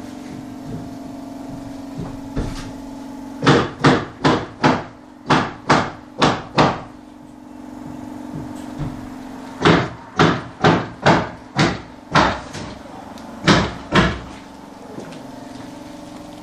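Hammering on a building site: runs of sharp blows at about two or three a second, eight in a row, then six, then two, over a steady machine hum.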